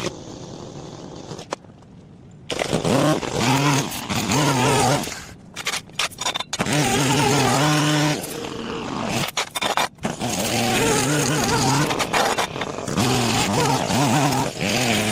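Small gasoline engine of yard power equipment running, its pitch rising and falling as the throttle is worked, with several abrupt breaks.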